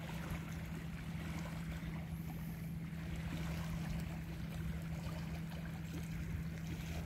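Steady low drone of a boat engine running on the water, over a hiss of wind and water.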